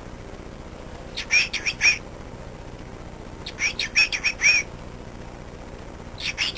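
Cockatiel chirping in three short bursts of quick, rapid chirps, a couple of seconds apart.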